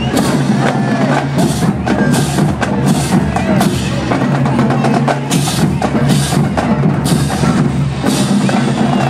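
Parade drum line playing a marching cadence: dense, rapid drum and stick strikes with a steady low sound beneath.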